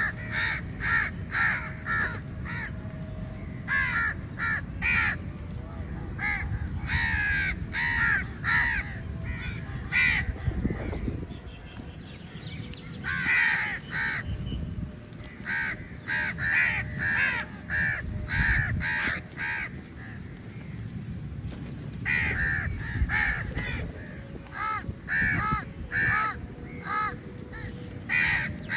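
Many crows cawing in quick runs of short caws, several birds at once, with brief lulls between the runs and a low rumble underneath.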